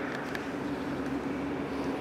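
A steady engine drone with a constant low hum that does not rise or fall.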